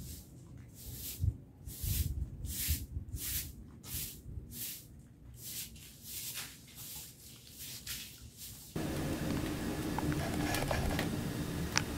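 Straw broom sweeping a stone-paved yard in steady strokes, about two a second. About nine seconds in it cuts off and gives way to a steady background with a few sharp crackles from a wood fire.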